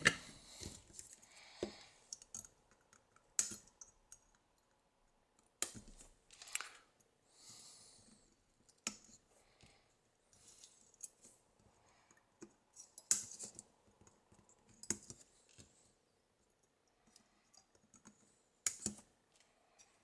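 Flush cutters snipping off soldered resistor leads on a circuit board. About seven sharp snips come at irregular gaps of one to four seconds, with soft handling rustles in between.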